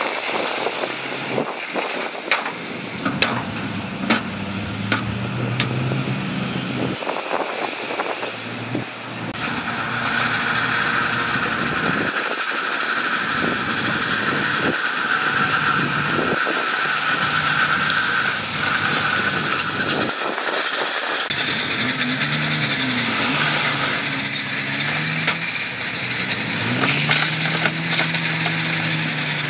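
Diesel engines of heavy earthmoving machinery (dump trucks and a crawler bulldozer) running under work, with sharp clanks and knocks. A steady high whine runs through the middle stretch, and the engine pitch rises and falls several times near the end.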